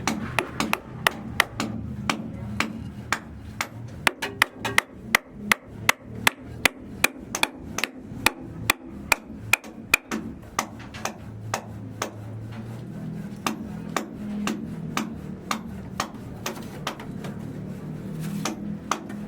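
Hammer blows struck in a steady run, about two to three a second, loudest and most regular through the middle stretch, then fainter and sparser.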